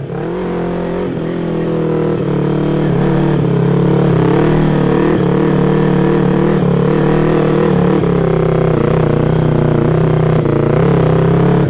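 Yamaha MT-25 parallel-twin engine running under way at a fairly steady speed on a dirt track, getting louder over the first few seconds and then holding an even note.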